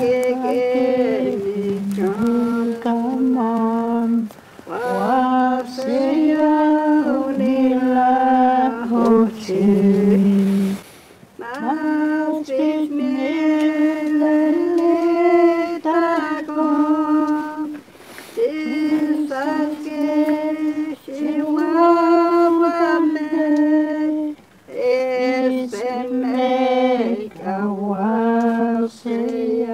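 Voices singing a slow hymn in long held notes, phrase after phrase, with short breaks for breath between the lines.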